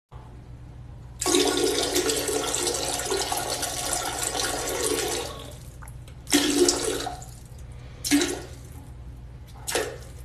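A toilet flushing: a rush of water starts about a second in and dies away some four seconds later, followed by a few shorter gushes of water. A steady low hum runs underneath.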